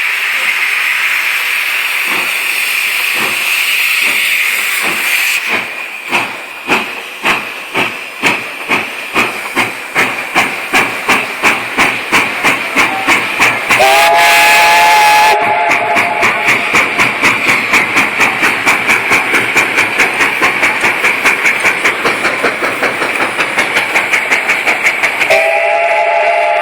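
Steam locomotive getting under way: steam hisses, then the exhaust chuffs start and quicken until they settle at about three a second. The steam whistle blows for about a second and a half midway, and again near the end.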